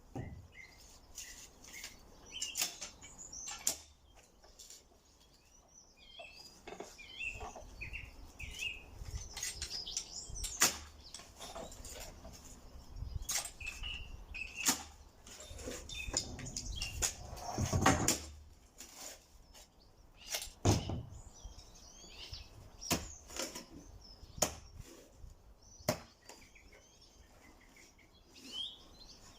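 Small birds chirping and singing, with scattered sharp knocks and clatter, typical of timber being handled and worked.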